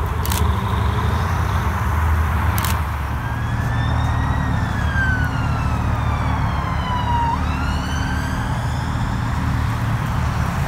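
Ford Mustang convertible's engine rumbling low and steady as the car pulls out close by. Over it, a high siren-like whine climbs, slides down over a few seconds, then jumps back up about two-thirds of the way in.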